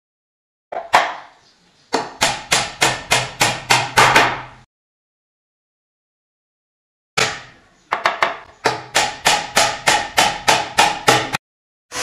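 Hammer driving nails into a plywood shelf carcass, fixing the top panel to the side panels. There are two quick runs of blows, about three to four a second, each blow sharp and short.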